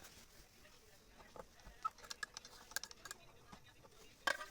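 Scattered light clicks and taps from handling a sewing machine's parts while it is stopped, with a louder click near the end.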